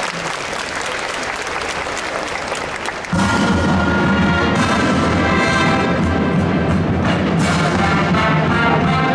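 Audience applause, then about three seconds in a large combined wind band comes in all at once, loud and sustained, with strong low brass notes.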